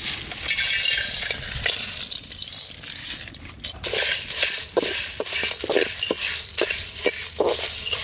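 Whole spices (cloves, cinnamon stick, black pepper, cumin seeds, bay leaves) tipped into a dry aluminium kadai over a wood fire and dry-roasted. A metal spatula stirs and scrapes them across the pan with the seeds rattling, in repeated strokes about twice a second from about halfway through.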